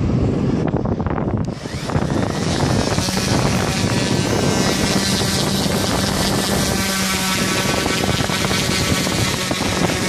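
Wind buffeting the microphone, then an electric orbital sander starts about two seconds in and runs steadily.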